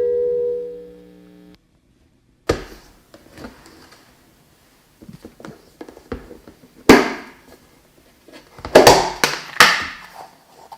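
A held music chord fades out over the first second and a half. Then come irregular wet squelches and sharp clicks of dish-soap-and-salt slime being worked, loudest about seven seconds in and again in a cluster near the end.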